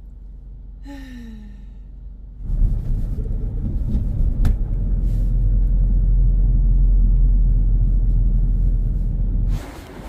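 Steady low rumble of a car driving along a town street, heard from inside the cabin. It cuts off abruptly near the end. Before it starts there is a brief falling hum or sigh from a woman.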